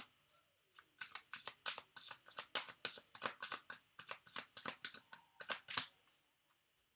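A deck of tarot cards being shuffled by hand: quick, even swishes about five a second, stopping about a second before the end.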